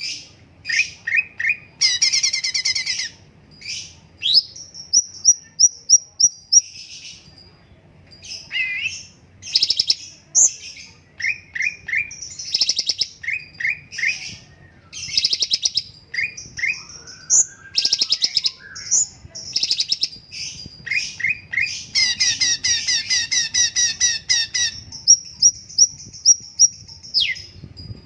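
A cucak cungkok songbird singing energetically in fast phrases: quick runs of repeated chirps and rapid trills, broken by long, steady high whistles.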